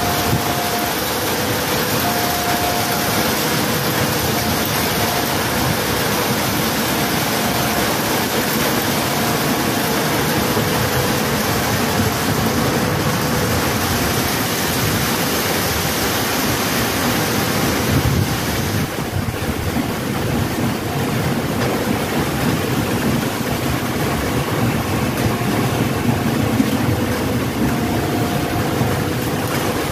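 Steady rain and wind noise on the microphone over the running of an electric KRL commuter train passing along the track. A faint on-and-off tone comes and goes through the first half and again near the end.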